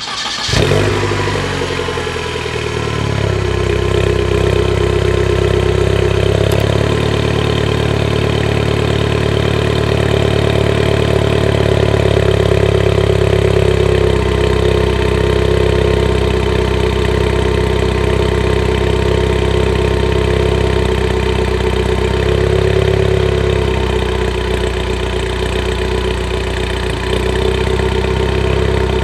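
Mini Cooper JCW's turbocharged four-cylinder engine starting, its revs settling over the first couple of seconds into a steady idle.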